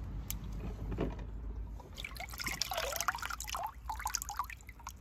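Hand splashing in a shallow plastic tub of water, fishing out a small toy car, with water dripping back into the tub: a run of small, irregular splashes and drips in the second half.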